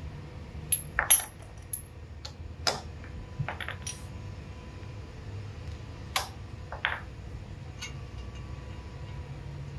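Irregular sharp metallic clinks of hand tools, a socket and a hammer, being handled and set down on a concrete floor, the loudest just after a second in, over a low steady hum.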